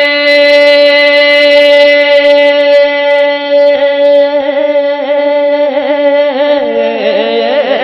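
Male naat reciter singing solo into a microphone. He holds one long steady note for about three seconds, then breaks into wavering, ornamented turns that slide down to lower notes near the end.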